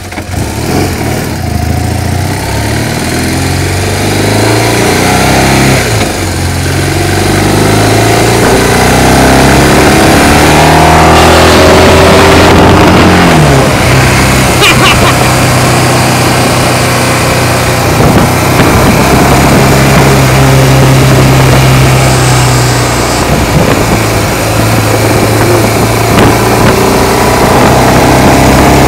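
Motorcycle engine running under way, pulling a sidecar. Its pitch climbs and steps up several times as it accelerates through the gears, then settles into a steady cruise, over an even rush of noise.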